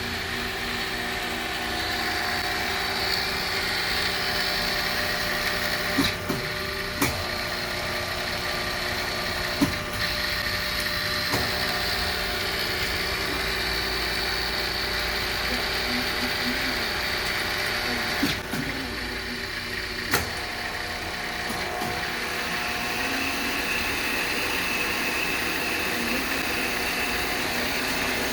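Monarch EE turret lathe running with a steady mechanical hum and whir, broken by several sharp clicks at irregular intervals.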